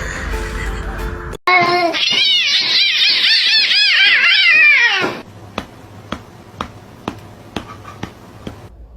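Cat meowing over and over in quick, high calls that rise and fall, starting suddenly about a second and a half in and stopping about five seconds in. After that come faint, regular clicks about twice a second.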